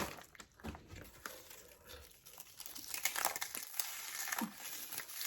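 Soft, intermittent crinkling and rustling, with a few small clicks.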